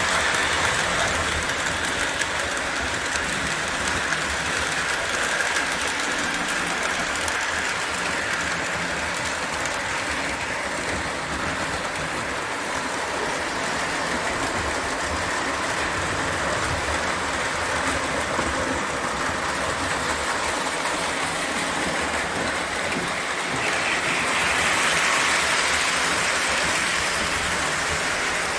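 O gauge model train running steadily on its track, a continuous whir and rattle of motor and wheels on the rails that shifts higher in pitch and gets a little louder near the end.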